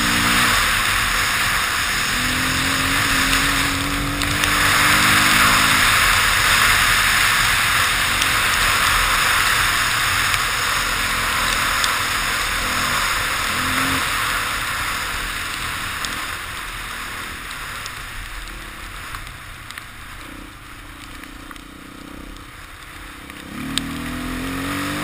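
Dirt bike engine revving up through the gears in several rising runs, partly buried under heavy wind rush on the camera's microphone. The wind is loudest from about four seconds in and eases off in the second half, when the engine climbs again near the end.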